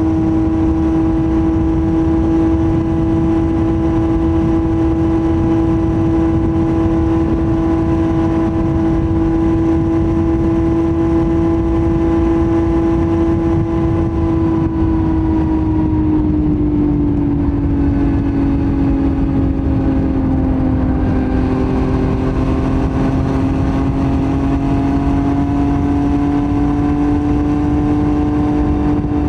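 Yamaha MT-09's CP3 three-cylinder engine through a Roadsitalia titanium full exhaust, holding a steady engine note. About fifteen seconds in the revs ease down, then slowly build again toward the end.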